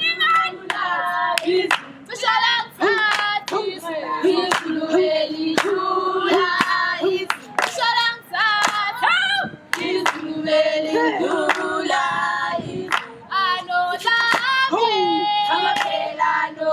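A group of girls singing a Zulu dance song together, with sharp hand claps throughout.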